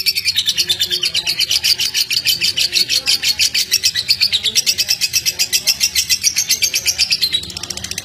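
Caged lovebird singing a long, rapid, evenly pulsed chattering trill, the stuttering style keepers call 'konslet'. It breaks off about seven seconds in.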